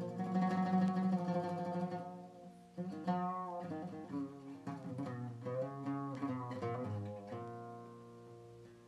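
Turkish oud with a spruce soundboard and American walnut bowl, played solo with a plectrum: a ringing chord dies away, then a run of quick plucked notes, ending on a note that fades out near the end.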